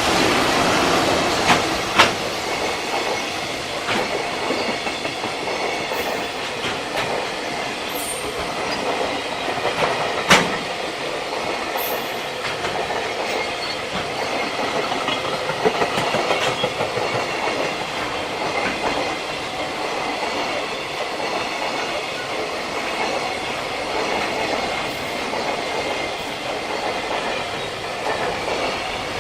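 JR Freight freight train rolling past at speed: a steady rumble and ringing of wheels on rail, with a few sharp clacks over rail joints, two of them standing out, near the start and about ten seconds in.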